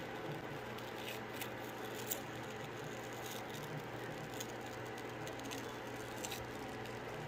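Nose pore strip being slowly peeled off the skin: a few faint crackles and ticks over a steady low hiss, the sharpest about two seconds in.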